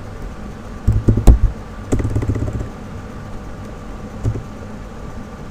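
A few computer keyboard key clicks over a steady low background hum, with low thumps and a brief low murmur about one and two seconds in.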